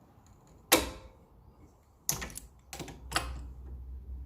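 Sharp clicks and knocks of a clamp and old brake pads being fitted into a four-piston brake caliper to push the pistons back: one knock about a second in, then a quick run of four more.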